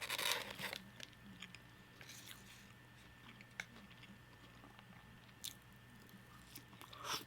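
A close-miked bite into crunchy food right at the start, then soft chewing with a few small clicks, and another short crunch near the end.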